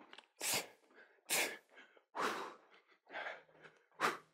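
A person exercising hard, breathing out in short, sharp puffs, five in about four seconds, in time with jumping jacks and jabs.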